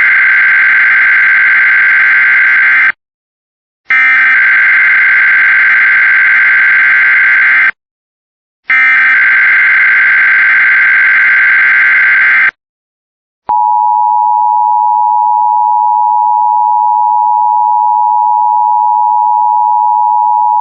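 Emergency Alert System test signal. Three loud bursts of warbling digital header data tones, each a few seconds long with about a second's gap between them, are followed about 13 seconds in by a single steady attention tone.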